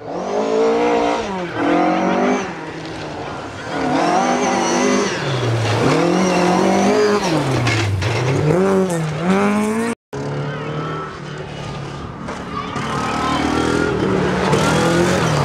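Rally car engines at full throttle on a gravel stage: a Mk2 Ford Escort's revs rise and fall several times as it shifts and lifts through the corners. After a brief cut, a second rally car approaches with its engine note climbing.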